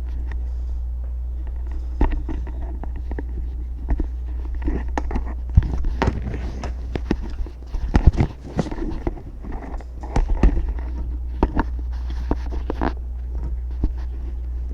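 Microphone handling noise: irregular knocks, pops and rustling as the replacement microphone is handled, loudest about halfway through, over a steady low hum.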